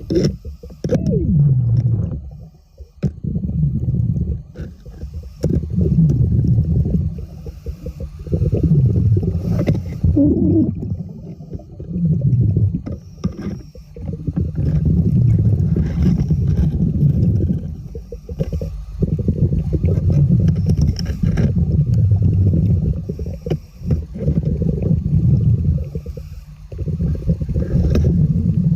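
Low underwater rumbling and gurgling of a diver's exhaled air bubbles, coming in surges every few seconds with brief lulls between breaths.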